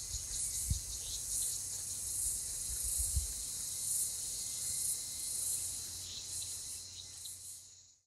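Insects chirring steadily in quick high-pitched pulses, with a few low thumps on the microphone. The sound fades out near the end.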